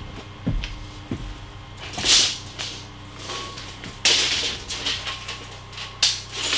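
A person moving about: two dull knocks in the first second or so, then three loud rustling swishes about two seconds apart.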